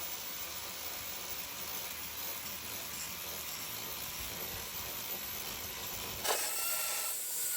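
Angle grinder with a grinding disc running against rusted steel van bodywork, grinding corroded metal back to sound metal, a steady harsh grinding noise. About six seconds in it turns harsher and higher, with a thin whine.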